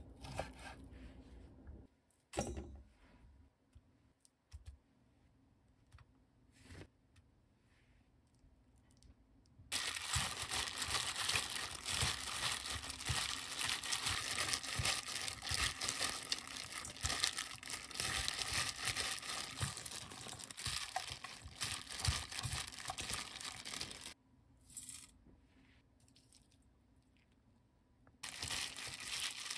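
A few knife taps on a wooden cutting board, then from about ten seconds in a continuous crinkling and rustling as a hand in a disposable plastic glove tosses seasoned shepherd's purse greens in a stainless steel bowl. The mixing stops for a few seconds and starts again near the end.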